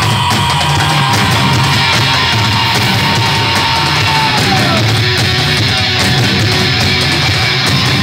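Heavy metal band playing live, with distorted electric guitars, bass and drums. A long held note slides down about four seconds in.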